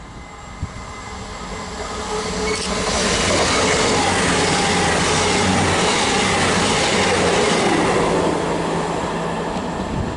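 Passenger express train passing at speed. The rush of wheels on rail and air grows over the first three seconds, holds loud and steady, then eases slightly near the end.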